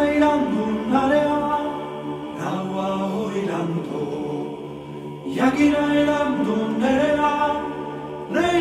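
A choir singing a cappella in long held chords, moving to a new chord every second or so.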